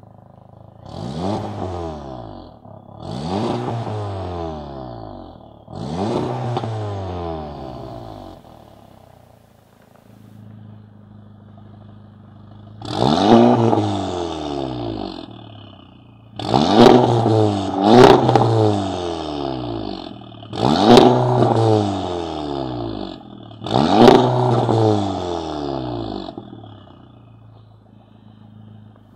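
Volkswagen Golf GTI Mk7's turbocharged 2.0-litre four-cylinder, fitted with an Fi valvetronic catback exhaust and catless downpipe, free-revved in throttle blips. First come three moderate revs with the exhaust valves closed. After a few seconds of idle come five much louder revs with the valves open, with a sharp crack near the top of two of them.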